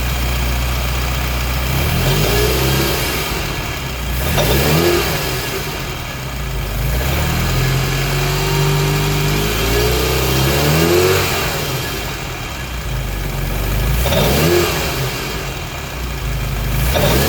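Ferrari Mondial V8 engine idling and revved up and back down about five times, once held up for a few seconds. The mechanic traces its clatter to the mass of the belt pulley (damper), which has worked loose.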